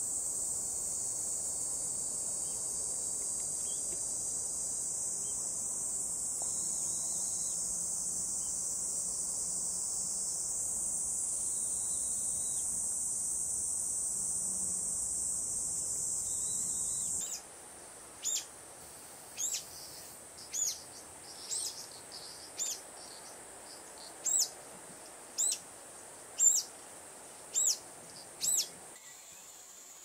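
An insect's steady high-pitched buzz, which stops abruptly about seventeen seconds in. Then a bird gives about ten short, high calls, roughly one a second.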